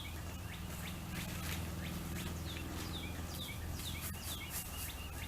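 Birds chirping over and over, each call a short downward-sweeping note, over a steady low rumble in the background.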